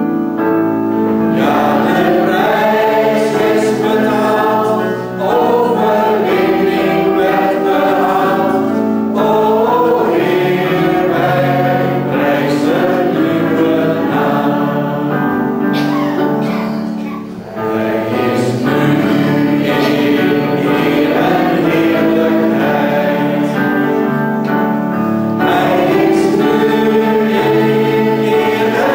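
Congregation singing a Dutch hymn together, mixed voices in unison, with two brief breaks between sung lines about 5 and 17 seconds in.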